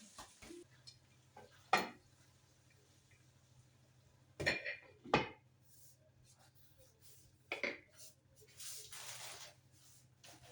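Kitchenware clattering: pots, dishes and metal utensils knocked and set down four separate times, the first the loudest, with a short scrape near the end.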